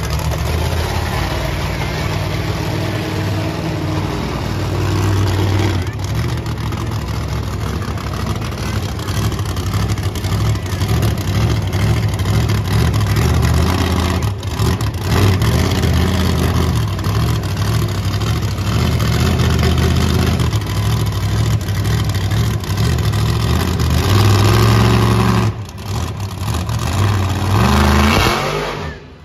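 Kraken monster truck's engine running hard and revving, its low drone rising and falling as the truck drives around the dirt arena. Near the end there is a short drop, then a sharp rev climbing in pitch.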